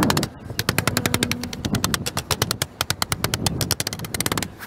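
A cordless drill's base knocking on the metal base flashing of a whirlybird roof vent to bend it down: a fast, even run of sharp knocks, about a dozen a second.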